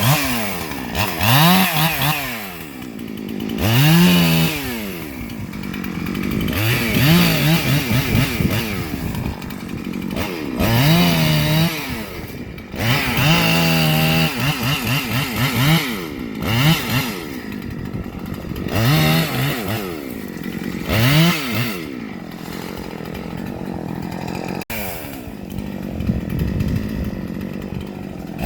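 Husqvarna gas chainsaw revving up and down over and over: the engine climbs quickly to high speed, holds briefly, then drops back, about every two to three seconds.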